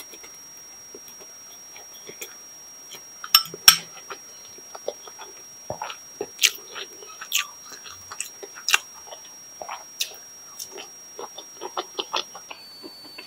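Close-miked chewing of instant noodles: a string of short wet clicks and smacks from the mouth, irregular throughout, with two louder smacks about three and a half seconds in.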